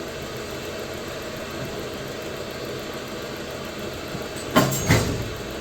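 Diesel heater's fan running steadily after the flame has gone out, then two loud knocks close together near the end.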